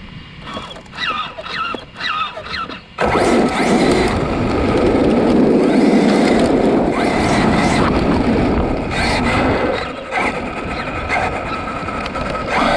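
Arrma Kraton 8S RC truck driving. In the first few seconds its brushless motor gives short rising whines; from about three seconds in, a loud, steady rushing noise of the truck running at speed takes over.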